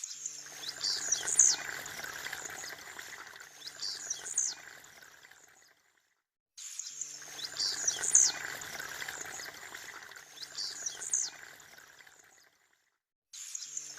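A blue-black grassquit (tiziu) gives its short, sharp song four times, about three seconds apart, over a steady background hiss. The sound cuts out completely twice for under a second.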